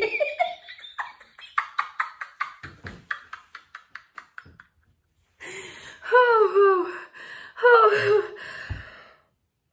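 A person laughing: a quick run of breathy, huffing 'ha' pulses, about four a second, that fade away over several seconds. After a short pause come a few higher voiced laughs with sliding pitch.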